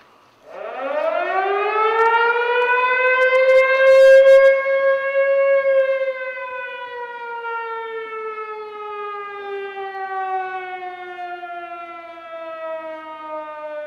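Air-raid siren winding up from about half a second in to a peak near four seconds, then winding slowly down, its pitch falling steadily to the end.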